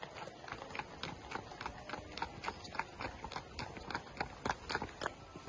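Hooves of a pony and a horse clip-clopping at a walk on a tarmac path, their steps overlapping in a steady run of sharp clops.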